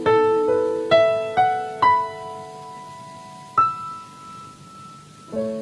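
Piano playing a slow instrumental interlude. Single notes step upward in pitch and are left to ring, one more high note sounds about three and a half seconds in and fades away, and a new chord comes in near the end.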